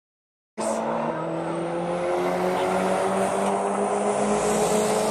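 Two racing cars' engines held at high revs under hard acceleration, a sustained multi-toned engine note whose pitch climbs slowly, starting after a brief gap of silence.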